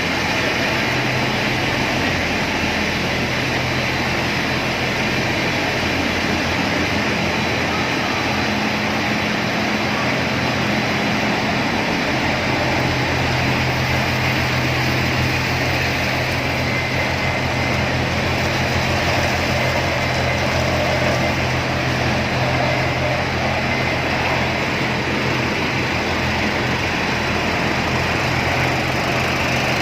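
Breakfast cereal production-line machinery running steadily: a constant low motor hum under an even mechanical noise, with no change in speed or load.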